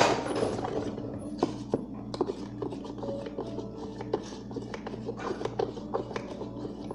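Stirring baking soda into boric acid water in a small cup: irregular scraping and clicking, with a steady low hum underneath.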